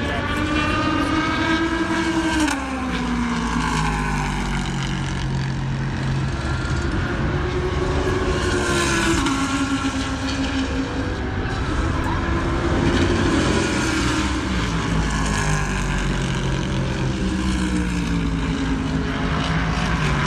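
Race car engines running on a track, several engine notes rising and falling together as cars accelerate, shift and lift off, over a steady rumble.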